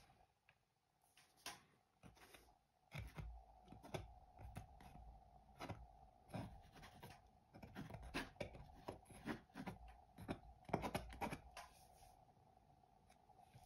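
Palette knife scraping and dabbing thick paint in a quick series of short strokes on the canvas and palette, starting about three seconds in and stopping shortly before the end.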